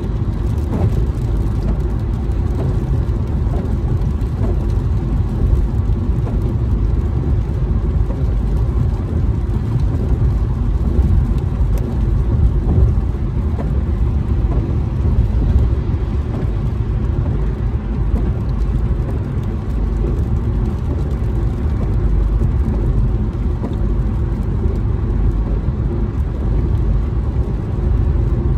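Steady low road noise inside a car's cabin at freeway speed: tyres on wet pavement with the engine running underneath.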